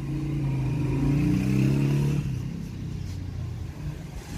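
A motor vehicle engine running close by, its pitch rising about a second in and then dying away a little after two seconds in, over steady traffic noise.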